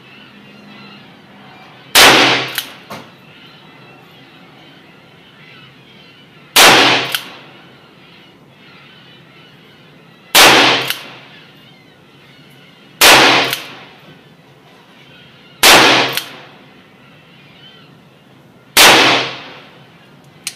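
Six shots from a Ruger Flat Top .357 Magnum single-action revolver firing light handloads (a 99-grain cast bullet over 5.2 grains of Promo powder), spaced about three to four seconds apart. Each loud report is followed by a short ringing echo.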